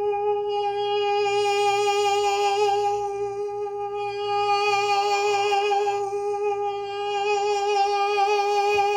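A man's voice holding one steady high note in head voice for about nine seconds. Its tone swells several times from round and soft to a brighter, sharper edge: a demonstration of interior vocal edge, where the vocal cords take a sharper shape.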